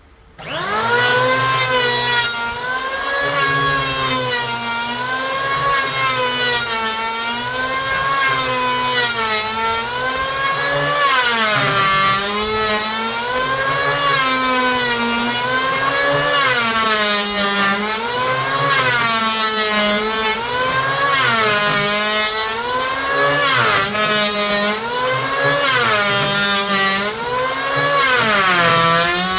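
Electric hand planer cutting down the wooden top of an anvil stand, its motor pitch dipping under load and recovering in a steady rhythm about once a second as it is pushed back and forth across the wood.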